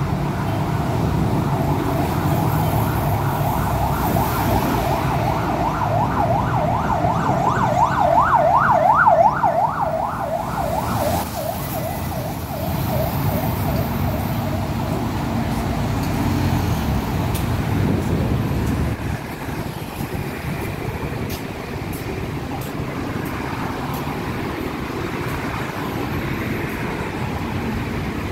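Road traffic passing, with an emergency vehicle's siren in a fast yelp, sweeping up and down several times a second; it grows louder to a peak about nine seconds in and stops about eleven seconds in. Car engines and tyres on the road carry on steadily after it.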